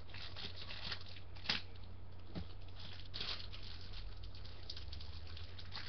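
Plastic toy packaging rustling and crinkling as a Beyblade box is unpacked, with a few small clicks of parts being handled, the sharpest about a second and a half in, over a steady low hum.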